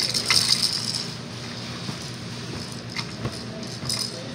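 Plastic baby toy bar with ring teethers rattling and clacking as it is handled, a few scattered clicks and a short rustling burst near the start, over a steady low hum.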